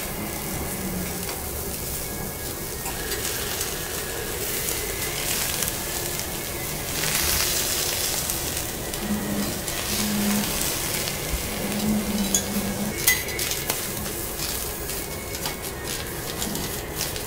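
Bok choy searing and sizzling on a teppanyaki steel griddle, with the knife and fork clicking and scraping against the metal as the greens are turned. The sizzling swells louder about seven seconds in.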